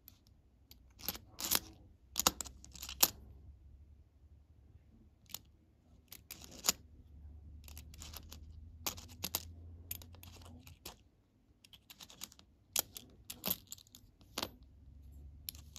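US nickels clicking and clinking against one another as fingers push, slide and pick them up on a mat, in irregular taps, loudest and densest in the first three seconds.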